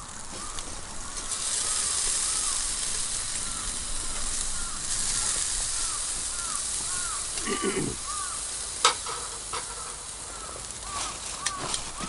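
Meat sizzling on a wire-mesh grill over charcoal, the sizzle growing louder about a second and a half in as the pieces are turned with chopsticks, then easing off. A single sharp click near the end.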